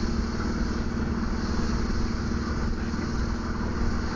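Chevy S10 Blazer's 4.3-litre V6 running steadily under way, heard from inside the cab with road rumble. The engine is not sputtering at this moment.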